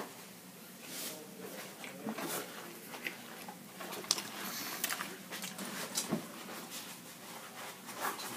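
Handling and eating a foil-wrapped burrito: scattered crinkles and rustles of the foil, with small clicks, clustered about four to five seconds in.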